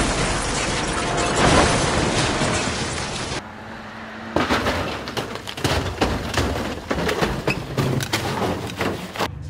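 A vehicle rolling over on the road: a rapid series of hard impacts and breaking parts as it tumbles, following a few seconds of dense, loud noise.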